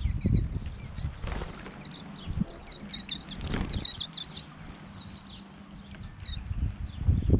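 Waxeyes (silvereyes) giving many short, high chirping calls in quick flurries, busiest about three to four seconds in, over a low rumble with a few thumps.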